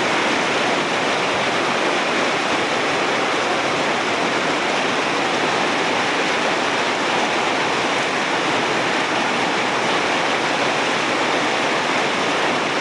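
Heavy rain falling in a steady downpour, an even unbroken hiss.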